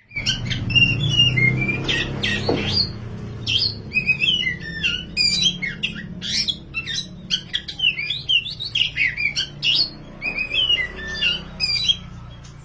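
Black oriental magpie-robin (kacer wulung) singing energetically: a fast, varied stream of whistled and scratchy phrases, over a low steady background hum.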